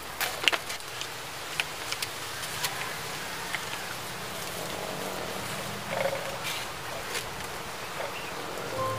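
Glass jars with tied paper covers being handled and set down on a wooden table: scattered light clicks and knocks. A steady low hum runs underneath.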